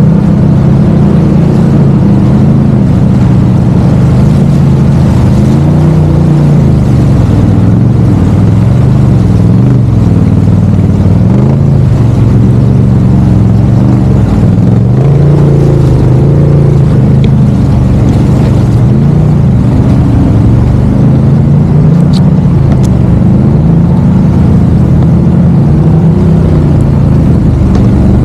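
Off-road vehicle engine running under a changing throttle, its pitch rising and falling over and over as it is worked along the trail.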